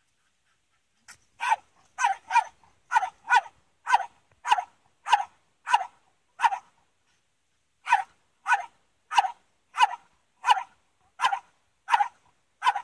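A dog barking repeatedly in short, sharp barks, about one and a half to two a second, with a pause of a little over a second about halfway through.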